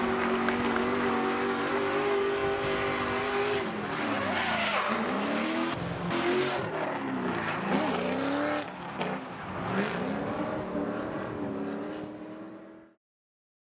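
Drift car engine at high revs over screeching tyres. The engine note holds steady, then drops and climbs again several times as the car slides, and it all fades out near the end.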